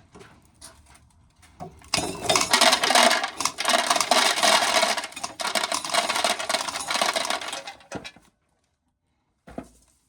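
Corn sheller stripping an ear of corn: a dense run of clicking and rattling as kernels come off, starting about two seconds in and stopping abruptly near eight seconds.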